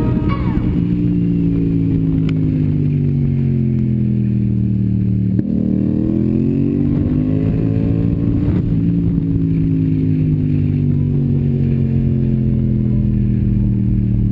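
Motorcycle engine heard from on board while riding: its pitch eases off over the first five seconds, breaks briefly about five seconds in, rises under throttle for about three seconds, then falls away slowly as the bike rolls on, over a low wind rumble.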